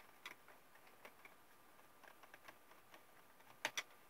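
Faint, scattered small clicks and ticks of hands working on a laptop's plastic underside while its last screws go back in, with two sharper clicks a little before the end.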